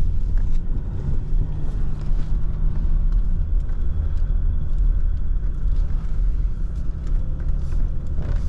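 Jeep Wrangler driving slowly through deep snow, heard from inside the cab: a steady low engine and drivetrain rumble.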